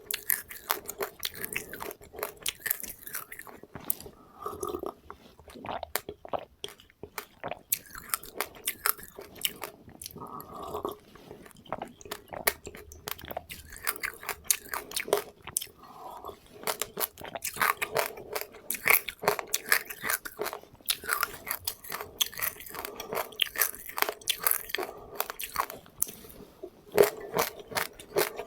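Close-up chewing of crunchy seeds with passionfruit: a dense run of small crunches and crackles, with a few short pauses.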